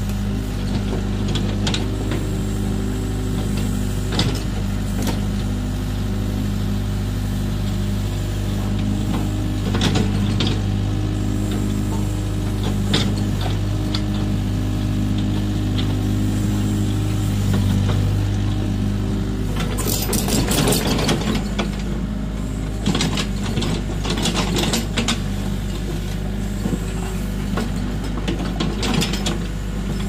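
LiuGong hydraulic excavator's diesel engine running steadily as the boom, arm and bucket are worked, with scattered knocks and clanks, a cluster of them about two-thirds of the way through.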